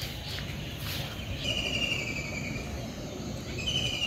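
A bird calling: a trilled call sliding slightly down in pitch, about a second long, given twice, over steady low background noise.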